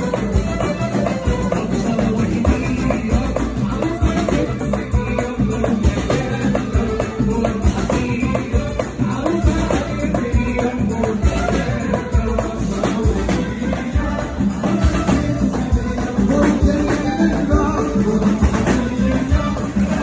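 Live Moroccan orchestra playing a makhzani medley: upright-held violins, lutes and saxophone over fast, steady percussion, with a singer's voice on a microphone.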